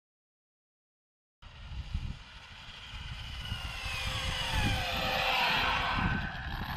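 Silence for about the first second and a half, then the high whine of an Arrma Limitless RC car's electric motor and drivetrain, several tones falling in pitch as the car slows after a top-speed run, with tyre noise on asphalt growing louder as it nears.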